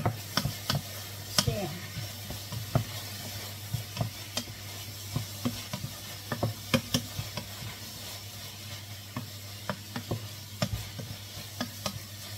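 A wooden spatula stirs bacon, garlic, onion and carrots frying in a pot, knocking and scraping against the pot in irregular strokes over a faint sizzle. A steady low hum runs underneath.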